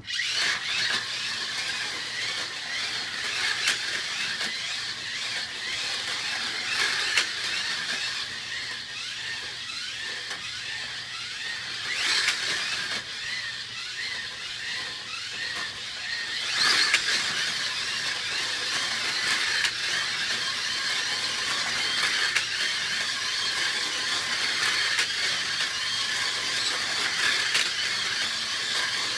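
Electric slot car running laps around a plastic track: a steady mechanical whirring and rattling that starts abruptly, with two louder clacks in the middle.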